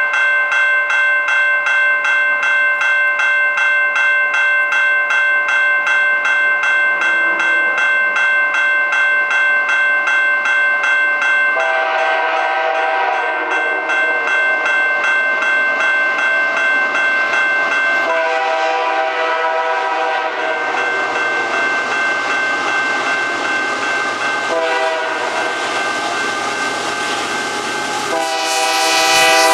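A crossing bell rings steadily, then the lead CP AC4400CW locomotive of an intermodal train sounds its horn in the long, long, short, long grade-crossing signal. The train's running noise swells during the last blast as the locomotives pass close by.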